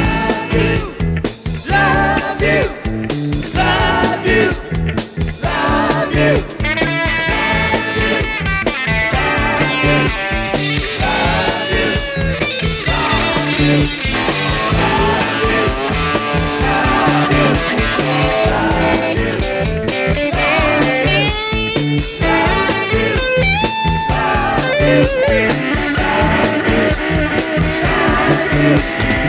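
Instrumental rock music: a lead electric guitar plays bending solo lines over bass and drums.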